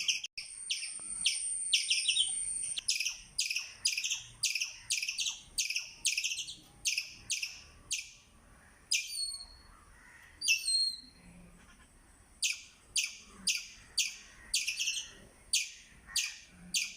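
Squirrel chirping: a steady series of sharp, falling chirps, about two a second, broken near the middle by a pause with two single calls of a different shape.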